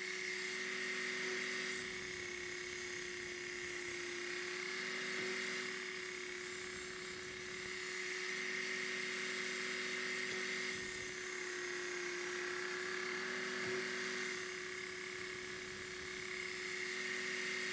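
Work Sharp Ken Onion Elite belt sharpener's motor running with a steady whine while a kitchen knife is drawn across the abrasive belt in repeated passes. A grinding hiss comes and goes every couple of seconds as the blade meets the belt. This is the edge being ground to raise a burr along its full length.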